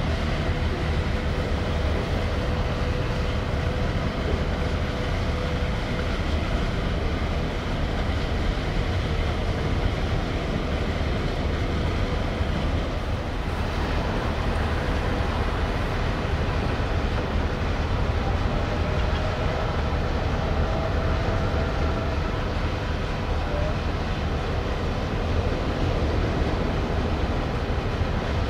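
Steady low rumble of the ferry Nissos Aegina's engines as it manoeuvres to berth, with faint steady tones above it.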